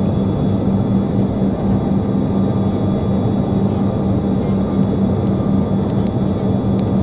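Steady engine drone of an aeroplane heard inside the passenger cabin in flight: an even rushing noise with a constant low hum.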